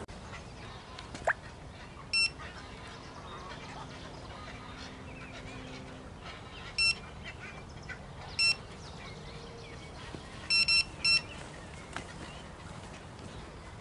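Electronic carp bite alarm on a rod beeping: single high beeps a few seconds apart, then three in quick succession near the end. It is the sign of a fish pulling line, a run.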